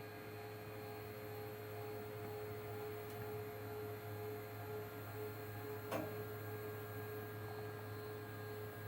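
Stepper motors of a CNC-converted PM-25MV milling machine running steadily as an axis moves to its home switch during the homing routine, a steady whine over a low hum. A single sharp click about six seconds in.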